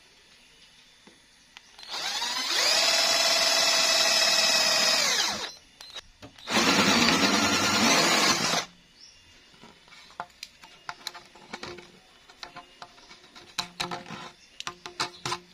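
Electric power drill running twice. The first run spins up, holds a steady whine for about three seconds and winds down. After a short pause a second run of about two seconds sounds lower and rougher. Light clicks and taps of handling follow.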